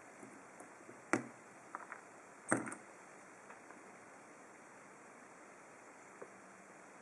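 Small metal parts of a padlock cylinder clicking and tapping as the lock is taken apart and its C-clip is worked off. There are two sharper clicks, about one second and two and a half seconds in, with a few light ticks around them.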